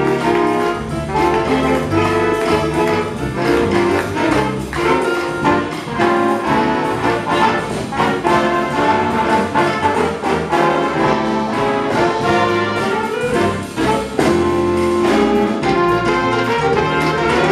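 Big-band jazz ensemble playing a mambo, with trumpets, trombones and saxophones sounding together over a busy rhythmic accompaniment.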